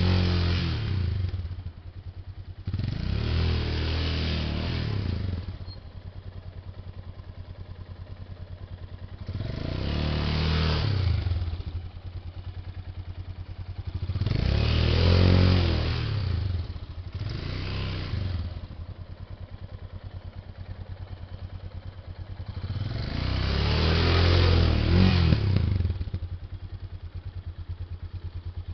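Yamaha XT660R's single-cylinder four-stroke engine, ridden with about six surges of throttle that each rise and fall in pitch, and a steady lower running between them.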